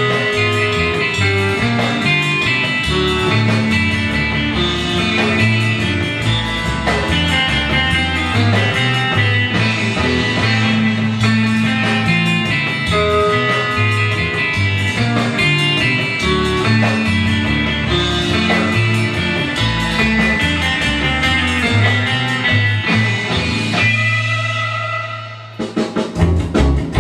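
Rockabilly record playing, a guitar-led song with bass and drums. Near the end the song finishes on a held, fading chord and the next track starts straight after.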